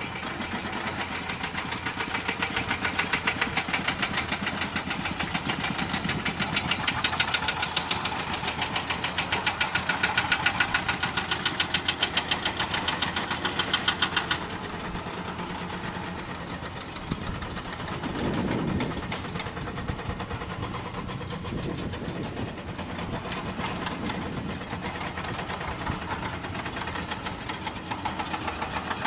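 Heavy construction machine's diesel engine running with a rapid, even knock. About halfway through it drops suddenly to a quieter, steadier running, with a brief swell a few seconds later.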